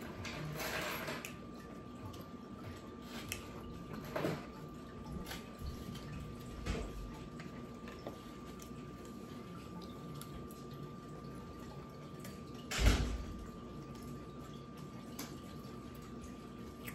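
Close-miked eating of a loaded taco: chewing and small wet mouth clicks, with a fork picking through the food and a few knocks, the loudest a single thump about three-quarters of the way through.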